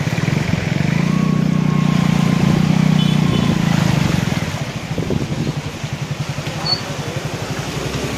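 Vehicle engines in slow traffic on a flooded road: a steady, low pulsing engine runs throughout, louder for a few seconds from about a second in as a car drives through the floodwater.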